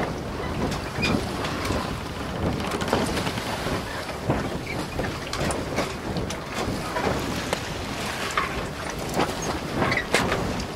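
Water splashing and rushing as an Amel Sharki sailboat's bow cuts through small waves, a continuous wash broken by many short splashes, with wind buffeting the microphone.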